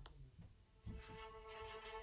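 Quiet background music. It dips almost to nothing for a moment, then a new passage with a long held note begins about a second in.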